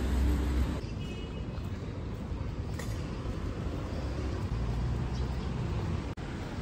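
Outdoor city street ambience: steady traffic noise from a nearby road. A loud low rumble fills the first second, then stops abruptly.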